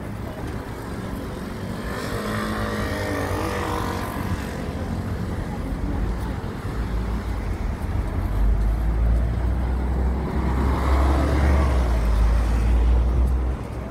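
Outdoor street ambience dominated by a low, steady rumble that grows much louder about halfway through, with a voice briefly audible in the background early on.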